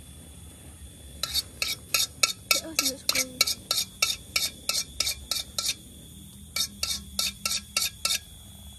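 Metal spoon scraping around inside a metal wok in quick strokes, about three or four a second; the strokes stop about five and a half seconds in, then a few more follow.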